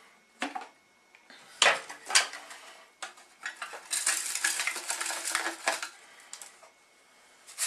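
Plastic blender jug knocking a few times as it is lifted off its base and handled. Then a dense, hissy rattle as blended tortilla chip crumbs slide and shake about inside the upturned jug and pour out.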